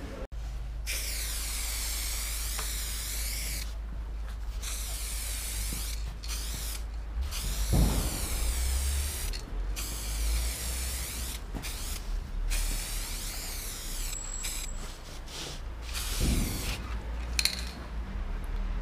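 Aerosol spray paint can hissing in a series of bursts, each lasting from about half a second to three seconds, with short breaks between them, as a throw-up is painted on a wall. Under the hiss there is a steady low rumble, and a low thump comes about eight seconds in.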